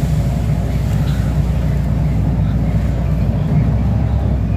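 Steady low rumble of a bus's engine and running gear, heard from inside the passenger cabin while the bus is moving.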